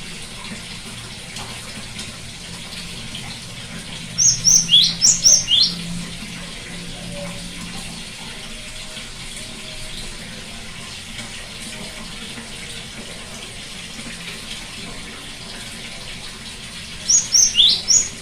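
Great tit (gelatik batu) calling: two short bursts of quick, high, downward-sweeping notes, one about four seconds in and one near the end, over a steady background hiss.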